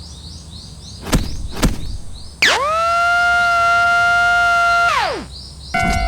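Chirping in the background, two thumps, then a loud sustained tone with many overtones that slides down into a steady pitch, holds for about two and a half seconds, and slides down again as it stops. Near the end a railroad crossing warning bell starts its rapid repeating 'kan-kan' ringing.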